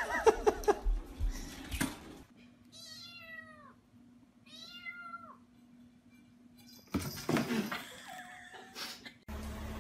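A small kitten meowing twice: two short calls that rise and fall in pitch, about two seconds apart. Before them there is a louder stretch of voice and clatter, and later another loud burst of mixed sound.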